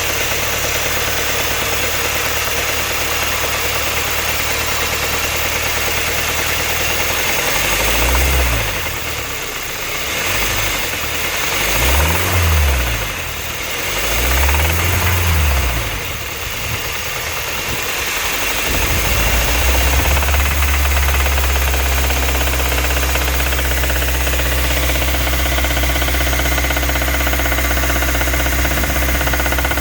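2015 Kia Optima EX's GDI four-cylinder engine idling, revved up and let fall back a few times between about 8 and 16 seconds in, then settling back to a steady idle. The run is taken to show a noise the owner calls strange.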